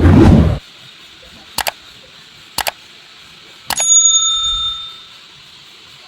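A short, loud thump, then two quick double clicks about a second apart, then a single bell-like ding that rings out and fades over about a second and a half.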